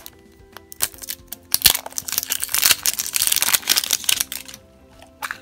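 A plastic Easter egg clicking open, then a plastic blind bag crinkling as it is pulled out and handled, with background music throughout.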